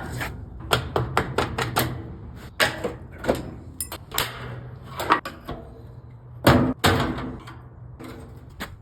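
Screws being taken out of a top-load washer with a hand tool: irregular metal clicks, taps and scrapes, with two louder knocks about six and a half seconds in.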